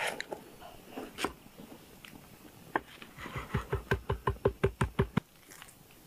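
Raw chicken breast being pounded flat for schnitzel on a wooden cutting board: a quick run of about a dozen dull thuds, roughly seven a second, starting about three and a half seconds in. Before it come a few soft knife clicks on the board.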